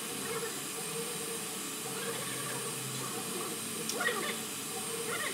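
Four-head MakerPi 3D printer running mid-print: a steady whirring hiss from its print-head cooling fans under a steady hum, with a few brief higher-pitched sounds about four seconds in.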